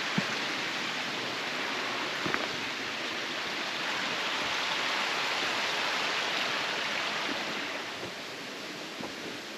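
Steady rush of running mountain water, easing off about eight seconds in, with a couple of faint knocks.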